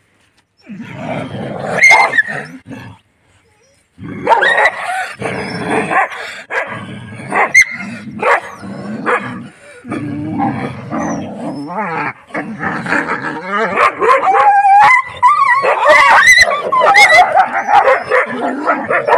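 Several village dogs growling and barking as they scuffle, with a short pause about three seconds in. In the last few seconds high, wavering whines and yelps join in.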